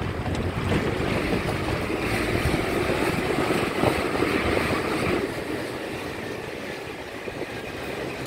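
A vehicle driving across a steel truss bridge: steady engine and road rumble mixed with wind buffeting the microphone. It grows louder for a few seconds in the middle and eases off after about five seconds.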